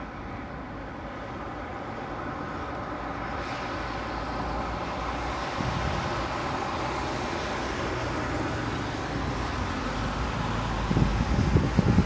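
Car traffic on a snow-covered street, with a car's engine and tyres drawing slowly nearer and passing. Wind gusts buffet the microphone near the end.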